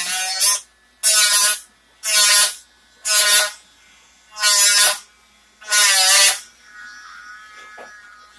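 A small high-speed power tool buzzing in short bursts of about half a second each, switched on and off six times.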